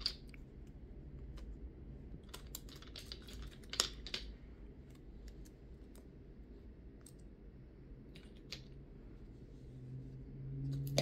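Light plastic clicks and taps as nail-tip swatch sticks are set down one at a time on a tabletop, with a quick run of clicks a few seconds in.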